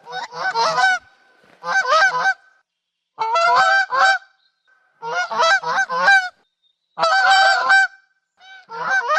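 Goose honking in six bouts of rapid, nasal honks, each bout about a second long, with short silent gaps between them.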